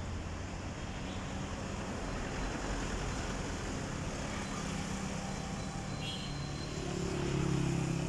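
Steady city road traffic, with cars and motorbikes passing; near the end one vehicle's engine passes close and grows louder.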